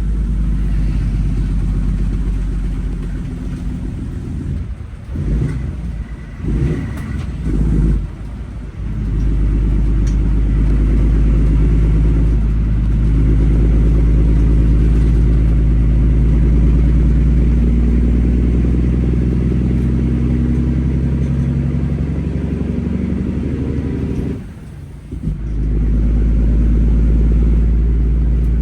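Heavy-truck diesel engine, a 600-horsepower Cummins in an International 9900, running steadily with a deep low rumble. Its level dips briefly several times between about five and nine seconds in, and once more for about a second near 25 seconds in, as the engine note changes.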